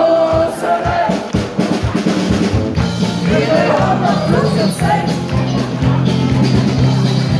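A live band playing in a beer tent, with drum kit and singing. About three seconds in, a steady, rhythmic bass line comes in under the drums.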